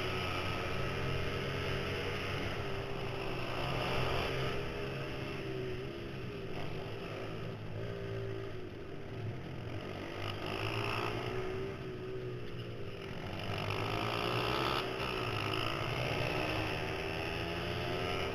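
Mini supermoto pit bike's small single-cylinder four-stroke engine, heard from the rider's helmet, revving up hard and dropping off again several times as the bike accelerates out of corners and backs off into them around a kart track.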